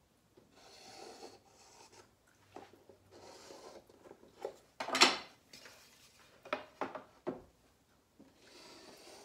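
Drawing on a board: several scratchy strokes lasting about a second each, with a sharp knock about five seconds in and a few lighter taps after it.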